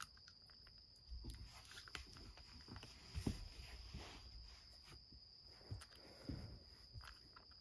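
Cat eating dry kibble from a wooden dish: faint, irregular crunching with small clicks and knocks of food against the dish.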